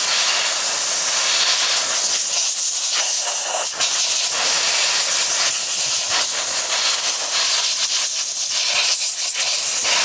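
Compressed-air blow gun hissing steadily, blowing rinse water out of a car air-conditioner's blower motor and housing to dry them after washing.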